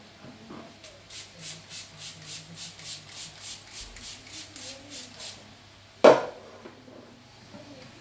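A red spray can sprayed onto hair in quick short spritzes, about three or four a second, for around four seconds. Then one sharp loud knock about six seconds in.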